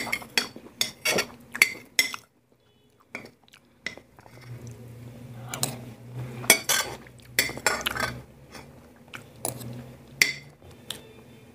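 Metal spoon clinking and scraping on a ceramic plate in quick, uneven taps, with a brief pause a couple of seconds in. Quiet chewing between the clinks.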